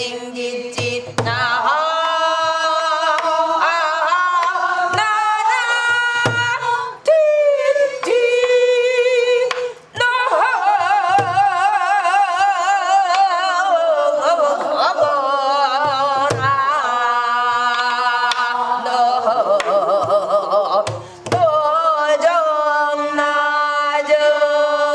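A woman singing gueum, the wordless vocables of Korean traditional song, in long held notes with wide vibrato. She accompanies herself in gutgeori rhythm on a buk barrel drum, whose low strokes fall every few seconds between and under the phrases.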